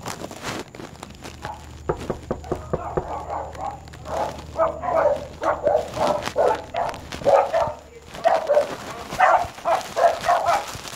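Pet dogs barking and yipping excitedly in quick succession, starting about a second and a half in and growing busier and louder: the dogs greeting their owner as she comes through the front door.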